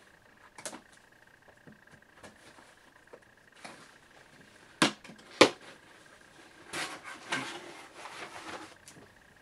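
Cardboard box being opened by hand: a few sharp clicks, the two loudest close together about five seconds in, as tape is cut, then a couple of seconds of cardboard flaps and paper rustling and scraping near the end.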